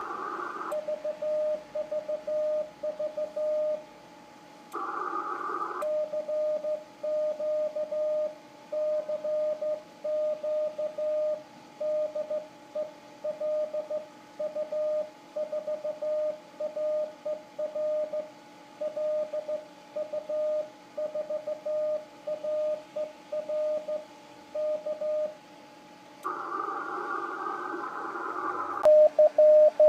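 Morse code CQ call sent by hand on a Vibroplex straight key, heard as the ICOM IC-7000 transceiver's CW sidetone: a single steady tone keyed on and off in dits and dahs. Short patches of hiss fill the longer pauses, and a louder run of keying starts near the end.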